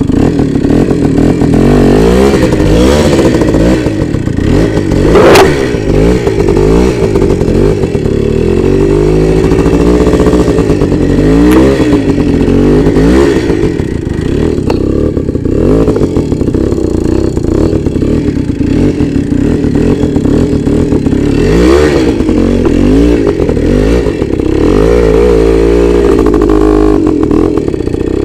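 Voskhod 3M-01's single-cylinder two-stroke engine revving up and down again and again as the motorcycle is ridden over rough, muddy ground, with a sharp knock about five seconds in.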